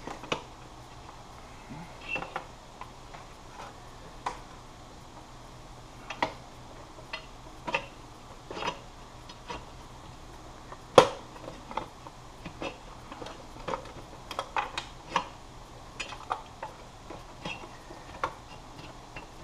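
Irregular small clicks and knocks of a circuit board and its parts being pushed and worked into a tight fit in a power amplifier's metal chassis, with one louder knock about 11 seconds in.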